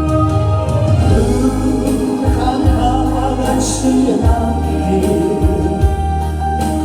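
Instrumental break of a Korean ballad backing track: electronic keyboard and bass accompaniment with a wordless backing chorus, played loud over the venue's speakers.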